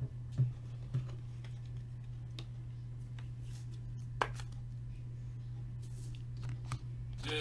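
Quiet handling of trading cards, with a few light clicks, over a steady low hum.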